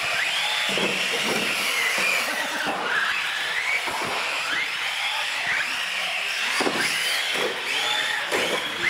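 Several radio-controlled UTV trucks racing on a concrete floor, their electric motors whining in overlapping tones that rise and fall as the drivers throttle up and back off through the turns.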